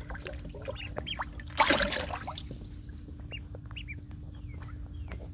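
Pekin ducklings peeping: scattered short, rising high-pitched chirps. One brief burst of noise comes about a second and a half in.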